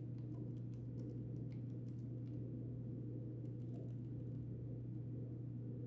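Steady low electrical hum with faint, scattered clicks of computer-keyboard typing over the first few seconds.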